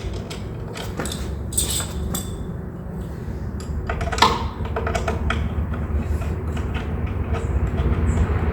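Scattered clicks and clinks of metal tools and fork parts being handled during a motorcycle front-fork strip-down, the loudest about four seconds in, over a steady low background hum.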